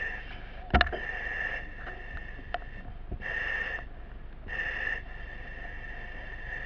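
A firefighter's breathing through a breathing-apparatus facepiece, the regulator hissing with a whistling note in spells of about half a second to a second and a half. A sharp knock comes about a second in, with a few lighter clicks later.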